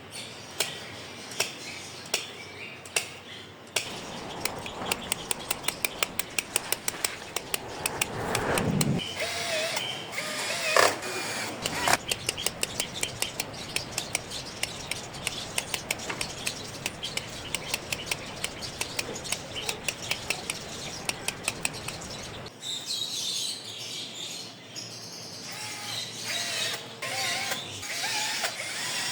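Rapid, regular mechanical clicking, several clicks a second, like a ratchet, starting a few seconds in and stopping abruptly about three quarters of the way through. Birds chirp now and then, most often near the end.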